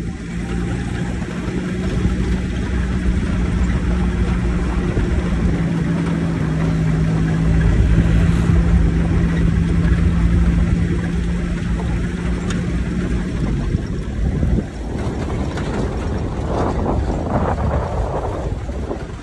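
Vehicle engine drone and road rumble of a car driving on a gravel dirt road, heard from inside the vehicle. About fifteen seconds in, the steady engine hum drops away, leaving a rougher rumble.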